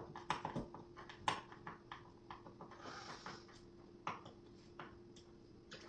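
Irregular light clicks and knocks of nightstand panels and screws being handled during assembly, with a brief scrape or rustle about three seconds in. A faint steady hum runs underneath.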